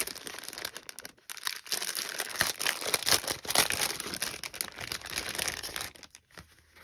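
Clear plastic packaging sleeve crinkling as hands handle it and slide a paper dress embellishment out, quietening near the end.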